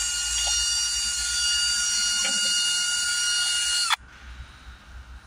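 Milwaukee cordless drill running steadily with a high whine as it spins a length of wire cable down a soot- and carbon-blocked exhaust pressure sensor hose to clear it. It stops abruptly about four seconds in.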